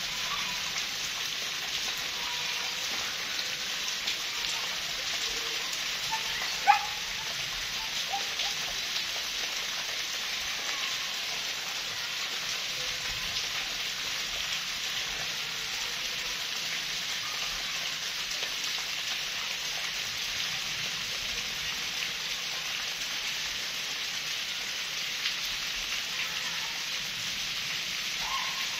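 Steady rain falling on the ground, an even hiss throughout. About a quarter of the way in there is one brief, sharp, louder sound with a short rising pitch.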